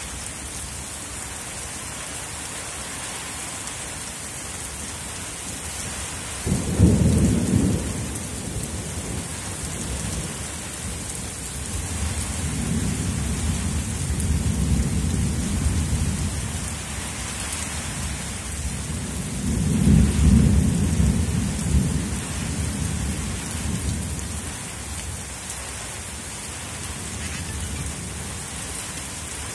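Steady rain falling, with thunder rumbling three times: a sudden peal about six seconds in, then two longer rolling rumbles later on.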